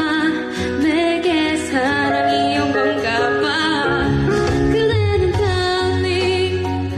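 Female pop vocal singing a smooth, sustained melody with gliding notes over light musical accompaniment.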